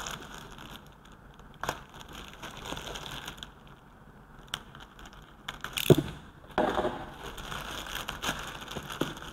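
Plastic bag being opened: crinkling and rustling with scattered sharp crackles, busier and more continuous in the last few seconds.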